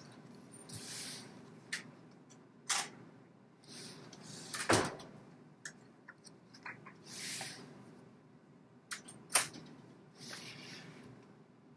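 Stiff construction-paper pages of a handmade picture book being turned by hand. About four papery swishes, with several sharp taps as the pages land, the loudest about halfway through and again near the end.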